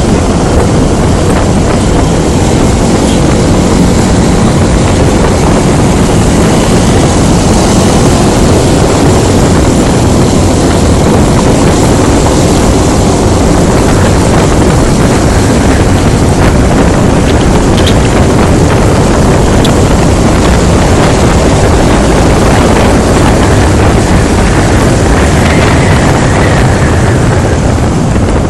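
Heavy wind noise buffeting a helmet-mounted phone microphone during a motorcycle ride, with the Honda Scoopy scooter's engine running steadily underneath.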